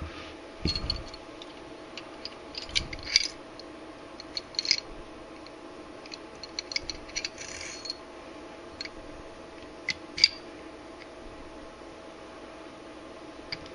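Steel parts of a 1911 pistol clicking and clinking while it is field-stripped by hand, as the recoil spring and guide come out and the barrel is worked out of the slide. The clicks are scattered and irregular, the sharpest about three seconds in and again near ten seconds, over a steady low hum.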